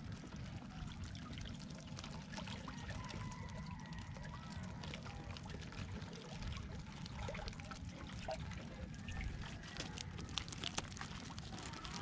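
River water pouring and trickling off a fishing net lifted beside a wooden boat, with scattered small splashes and taps that come more often near the end.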